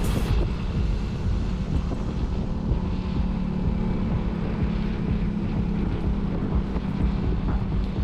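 Motorcycle engine running steadily while riding, with a low, even hum and wind rushing over the microphone.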